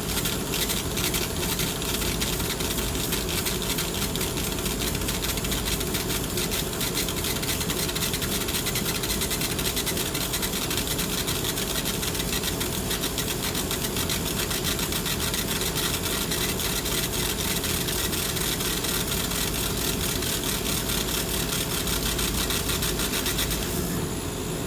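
Electric power tool running steadily with a fast fine flutter while working the cleaver's dense wooden handle; it cuts off about 24 seconds in.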